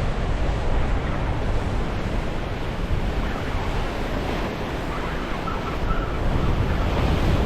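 Ocean surf washing and breaking against the shore, with wind rumbling on the microphone.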